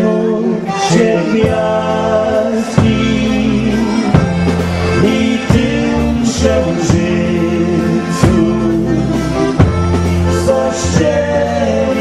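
Live dance band playing a waltz, with sustained chords over a bass line that steps through its notes and regular cymbal strokes.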